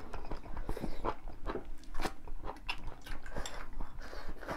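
Close-up eating sounds: crunchy chewing and biting, most likely of the shredded cold spicy beef tripe, with irregular clicks of chopsticks against porcelain bowls. A slurp from a bowl comes near the end.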